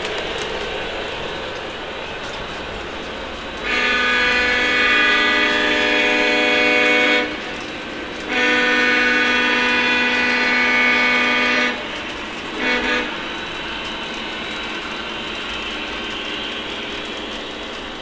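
O-gauge model diesel locomotive's onboard sound system blowing its horn: two long blasts, then a brief short toot. Under the horn is the steady rolling and motor noise of the model train running on three-rail track.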